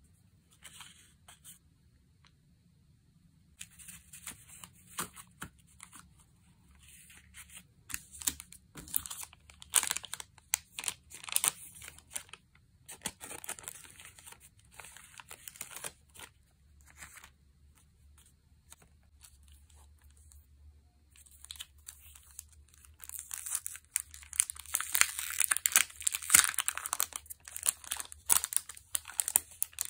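Clear plastic packaging of sticker and paper packs crinkling and rustling as it is handled, in irregular crackly bursts that grow busiest and loudest over the last several seconds.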